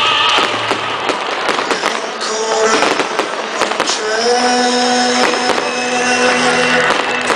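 Fireworks bursting and crackling in quick succession, many bangs close together, with music playing underneath; held musical notes stand out from about four seconds in.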